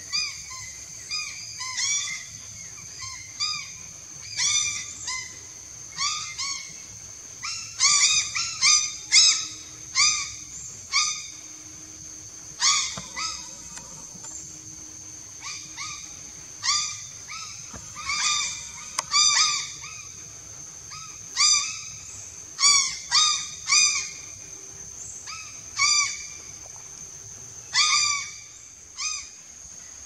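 Grey crow (Corvus tristis) calling: a long series of short, clear, arching calls, some coming in quick runs of several a second, over a steady high-pitched insect drone.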